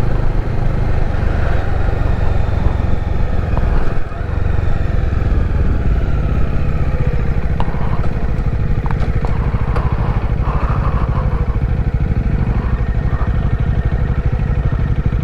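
Bajaj Dominar 400's single-cylinder engine running steadily while riding, a dense, rapid low thudding, with a brief dip about four seconds in.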